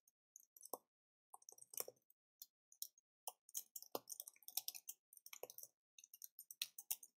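Computer keyboard typing: quick, irregular keystroke clicks in runs, with brief pauses between them.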